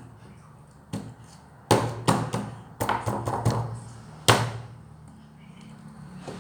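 A quick, uneven series of about nine sharp taps or slaps, the loudest one near the middle and a last hard one a little past four seconds in, over a faint steady hum.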